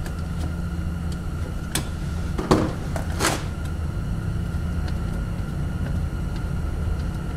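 A few sharp clicks and clatters of a hand ratchet with a 10 mm socket working a bolt on a car's plastic underbody cover, loudest about two and a half seconds in, over a steady low hum.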